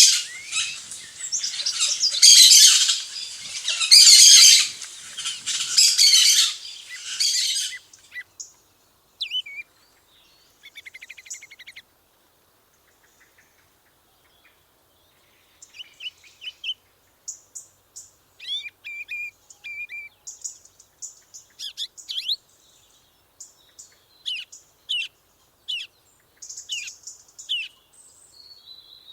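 Songbirds singing: a loud, dense warbling song for the first eight seconds or so, which then stops, followed by scattered short chirps and brief trills with quiet gaps between them.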